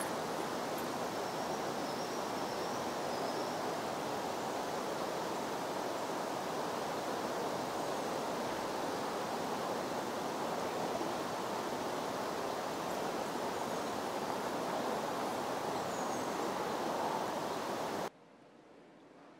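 Steady rushing of river rapids, an even hiss of water with a few faint high chirps over it. It cuts off suddenly near the end.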